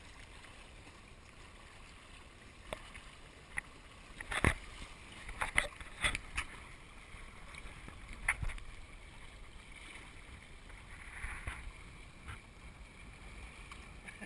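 Water slapping and splashing against the hull of a sailing Hobie kayak, in a handful of short sharp splashes over a steady low wash of wind and water.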